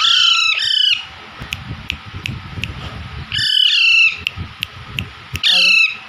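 Alexandrine parakeets squawking loudly in three bouts: two harsh calls at the start, two more about three and a half seconds in, and a short one near the end.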